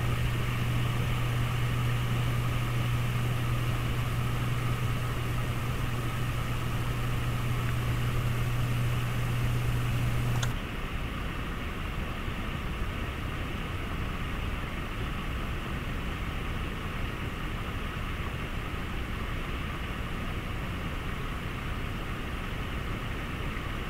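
Steady rushing of a mountain stream's water, with a low hum under it that stops abruptly about ten and a half seconds in.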